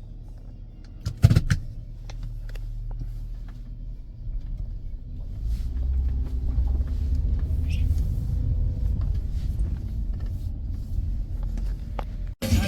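A car's engine and road rumble from inside the cabin, growing louder about halfway through, with one sharp knock about a second in.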